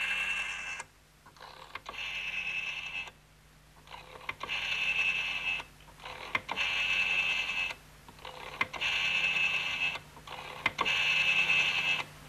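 A machine sounding in repeated bursts of about a second and a half, roughly every two seconds, each with a bright ringing edge, with single clicks in the pauses and a steady low hum underneath.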